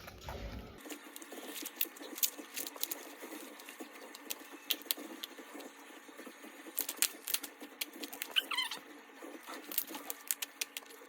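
Butter slime being kneaded and stretched by hand, giving off irregular sticky clicks and pops, with one short squeak about eight seconds in.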